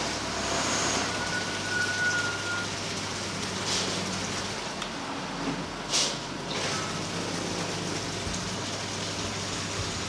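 A few sharp plastic clicks and rustles as a top-loading washing machine's water level pressure sensor is handled and pulled free, the loudest about six seconds in, over a steady low hum and background noise.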